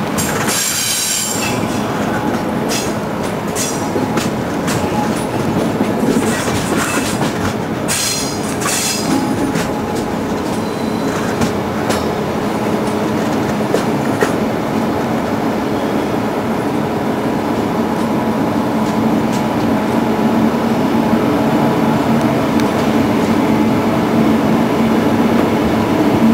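Passenger train coaches rolling through station pointwork, wheels clacking over the joints and crossings, with high-pitched wheel flange squeal on the curves about a second in and again between about six and nine seconds. The train is running into the station to stop, heard from an open coach window.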